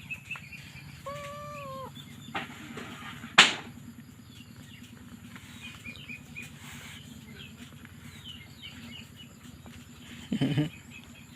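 A kitten gives one drawn-out, arching mew about a second in, over many faint, short, high chirps. A single sharp knock comes a few seconds later, and a short low thump comes near the end.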